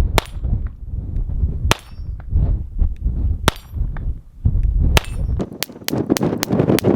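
Taurus TX 22 .22 LR pistol firing Remington Thunderbolt rounds at steel plates, each shot with the ring of a plate hit. There are four slow shots about a second and a half apart, then a faster string of about three shots a second. Wind rumbles on the microphone in the first part.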